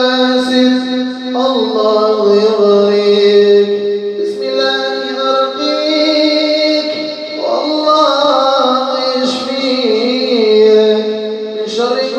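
Music of long, held vocal-like notes in several layers, shifting to a new pitch every few seconds, with no words.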